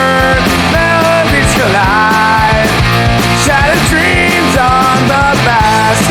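Loud hard rock music with drums and dense low chords, and a lead melody sliding between held notes.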